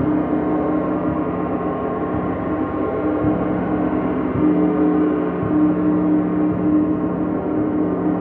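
Gong played continuously in a sound bath, a dense wash of many ringing tones with a slow pulsing beat in its low hum.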